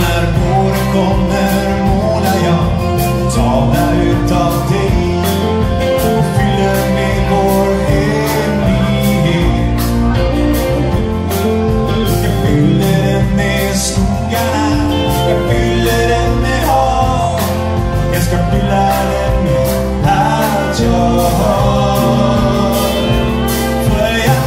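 Live rock band playing a song: male lead vocal over acoustic guitar, electric guitar, fiddle, electric bass, keyboards and drum kit, with a steady drum beat.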